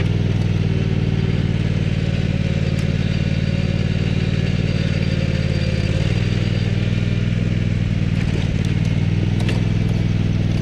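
Craftsman DGT6000 riding mower's Kohler engine running steadily under load as the mower drives up a steep grassy ridge.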